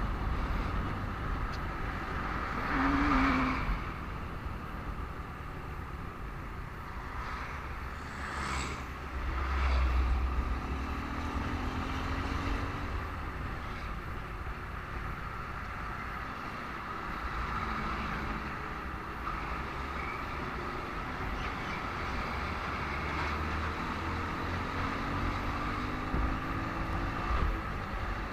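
Road traffic heard from a moving motorcycle: a steady mix of engine and tyre noise, with louder swells as vehicles pass about 3 and 10 seconds in and engines rising in pitch now and then.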